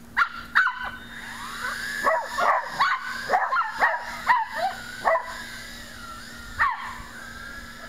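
A dog whining and yipping: a string of short, sharp yelps in the first five seconds, with high sliding whines between them, and one more yelp near the end.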